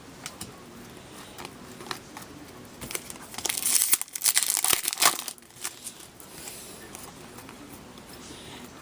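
Hockey card pack wrapper from a 2014-15 Upper Deck Series 1 box being torn open and crinkled by hand, with a few light ticks at first and the loudest spell of crinkling and tearing around the middle, then soft rustling.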